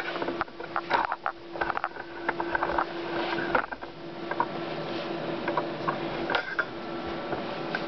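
Memjet SpeedStar3000 inkjet label printer's mechanism: a steady hum overlaid with short whirs and repeated clicks as its servo moves. The hum breaks off briefly a few times.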